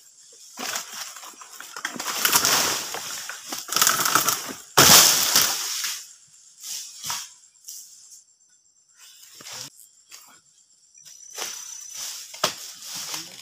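Oil palm fronds rustling and crashing down as they are cut with a long pole sickle: a few long noisy crashes, the heaviest starting suddenly about five seconds in, then sparse crackles of leaves.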